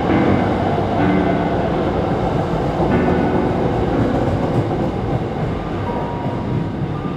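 Hankyu 9300 series electric train running on the line, its noise easing slowly over the seconds, with faint high tones coming in near the end.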